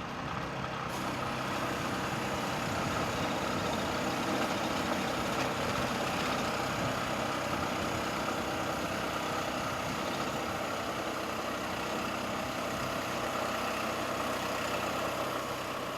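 Portable band sawmill with a gasoline engine running steadily while its band blade saws through a log.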